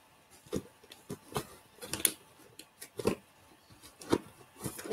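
Small boxed cosmetic products clicking, tapping and rustling as a hand rummages through a plastic kit box searching for one item: a dozen or so short, irregular knocks.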